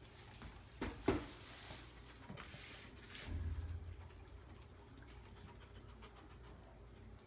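Scratching and scuffling of a dog and a cat moving about a plastic pet carrier and its wire door on a tile floor, with a few sharp clacks, the loudest about a second in. A brief low rumble follows a little past three seconds.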